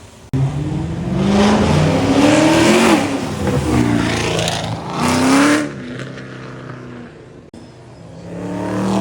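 Car engines accelerating hard and revving up as cars pull away: a long rising pull in the first few seconds, a shorter rev about halfway, and another rising toward the end, with abrupt cuts between them.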